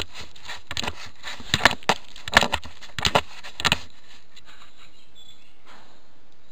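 Rustling and scraping right at the trail camera's microphone, in quick irregular bursts, as an animal's fur brushes against the camera; the noises stop about four seconds in.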